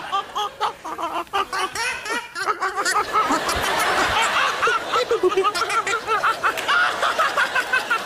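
A man making rapid, high-pitched snickering vocal noises, a string of short chirping syllables several a second, with studio audience laughter.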